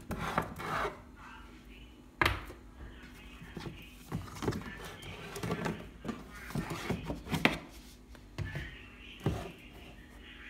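Jars and canisters being moved about on a wooden kitchen cabinet shelf: a string of separate knocks and clatters as containers are set down and bump against the shelf and each other.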